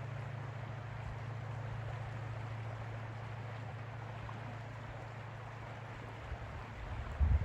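Distant motorboat engine droning steadily over a soft hiss of lake water and air, the drone fading near the end. A few low thumps come in the last second or so.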